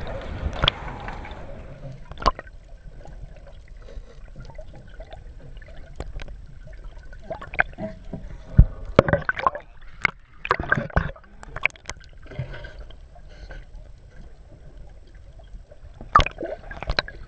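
Muffled underwater sound through a submerged camera's waterproof housing: water gurgling and sloshing, with irregular knocks and clicks.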